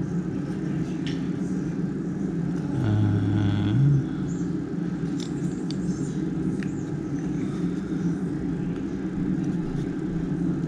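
A steady low hum runs throughout, with faint light clicks of a plastic key fob shell and its battery being handled and pressed together. About three seconds in, a louder low drone sounds for about a second.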